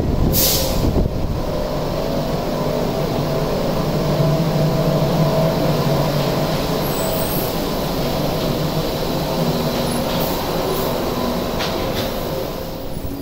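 Bukit Panjang LRT rubber-tyred people mover, a Bombardier Innovia APM 100 car, pulling out of a station and running off along its concrete guideway with a steady motor hum and tyre noise. A brief hiss comes about half a second in.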